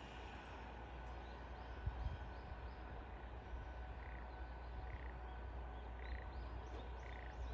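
Outdoor ambience over rice paddies: frogs calling in short, repeated rasping croaks from about four seconds in, with a few thin high chirps near the end. Under it runs a low rumble of wind on the microphone, with a brief gust about two seconds in.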